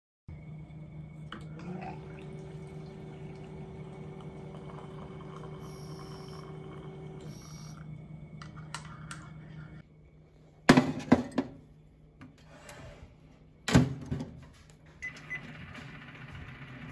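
A steady mechanical hum for most of the first ten seconds, then two sharp, loud knocks about three seconds apart, after which a Sanyo microwave oven starts running with a steady hum near the end.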